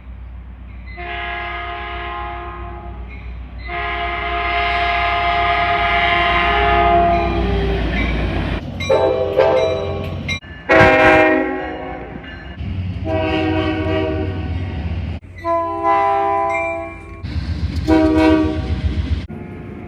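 Train horns sounding a series of blasts over a low rumble. There is a short blast, then a long one of about four seconds, then five shorter blasts of varying length. The rumble underneath stops abruptly and changes about eight and a half seconds in, and the horn sound changes with it.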